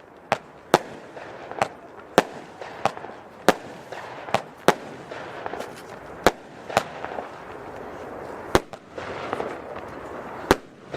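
Nico Gamma Ray F2 firework battery (cake) firing: about a dozen sharp bangs at uneven intervals, over a continuous noisy background.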